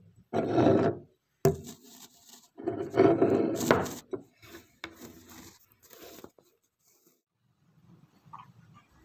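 Rubbing and scraping handling noise right at a phone's microphone as it is moved about among objects and brushed by a hand, with a sharp knock about a second and a half in; the noise fades out after about six seconds.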